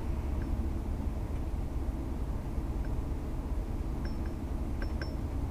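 Honda S2000's four-cylinder engine and tyres heard from inside the cabin while cruising: a steady low rumble, with a few light clinks near the end.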